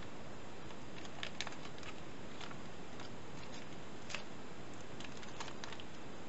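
Foil-lined energy-bar wrapper being torn open by hand and crinkled: scattered sharp crackles over a steady background hiss.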